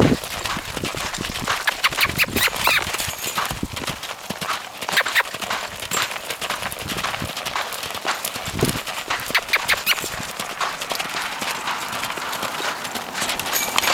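Hoofbeats of a saddled Quarter Horse mare loping around a sand round pen, a running patter of short, irregular beats on soft footing.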